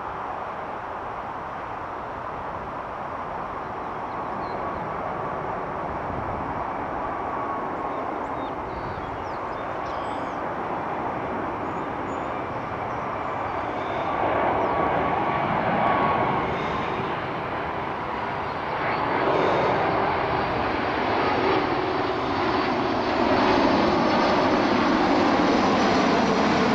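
Airbus A330 airliner's jet engines on final approach with landing gear down: a steady rumble that grows louder as the plane comes closer, with a faint whine at times.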